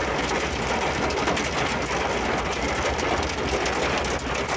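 Heavy rain pelting the roof and windscreen of a Ford Ranger pickup, heard inside the cab as a dense patter of taps over the low rumble of the truck driving.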